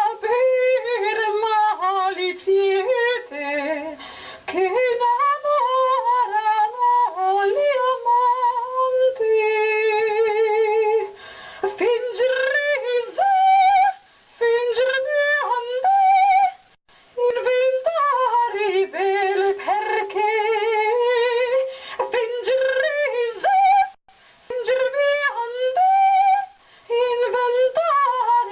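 A woman singing wordless, sustained notes with vibrato, sliding and leaping between pitches, with a few short breaths between phrases.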